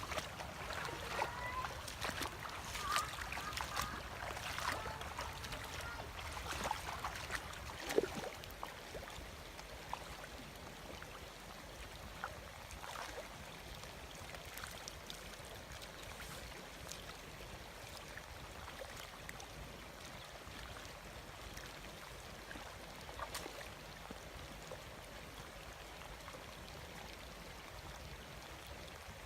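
Water trickling and splashing, with scattered small knocks and splashes, busier in the first eight seconds and then settling to a steady trickle.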